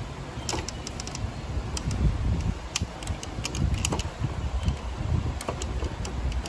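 Hand handling plastic parts inside an inkjet printer's cartridge bay: irregular small plastic clicks and rubbing over a low rumble.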